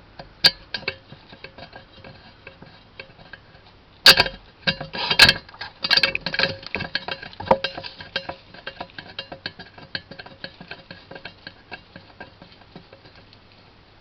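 An unidentified animal making a fast, irregular run of sharp clicks and ticks. They grow denser and louder about four to six seconds in, then slow and fade out near the end.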